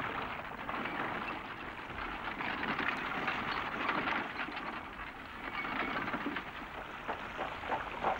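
Water splashing and sloshing as soldiers and horse-drawn carts wade through a shallow river: a dense, steady crackle of many small splashes.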